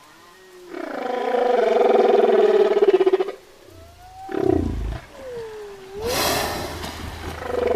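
Whale calls: a long moaning call with several overtones, then a falling sweep and a call that dips and rises in pitch, and another moan beginning near the end.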